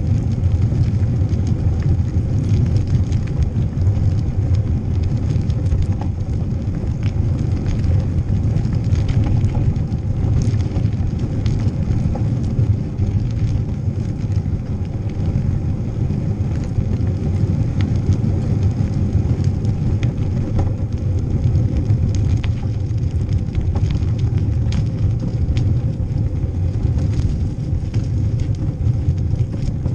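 Steady low rumble of wind buffeting a bike-mounted action camera's microphone, mixed with bicycle tyres rolling over paving stones, with scattered small clicks and rattles throughout.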